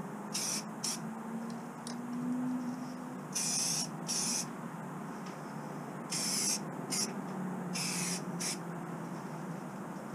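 Aerosol spray can of clear lacquer hissing in short bursts, about eight in all and mostly in pairs, as a final coat goes onto model parts.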